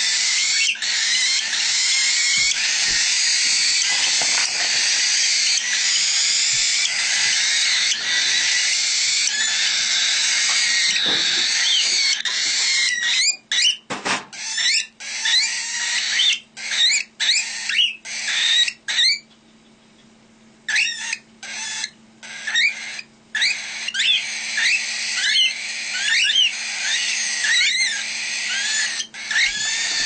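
Cockatiel chicks making their rasping, hissing food-begging calls. For the first dozen seconds it is one continuous din, then it breaks into short repeated calls, some rising, with a brief lull about two-thirds of the way through.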